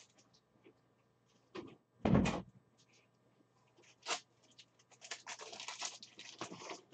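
Handling noises from someone rummaging for a magnetic card holder: a single thump about two seconds in, a click near four seconds, then a stretch of rustling and light clicking from about five seconds.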